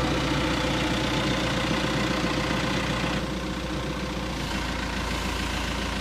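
Caterpillar 420E backhoe loader's diesel engine idling steadily, easing slightly about three seconds in.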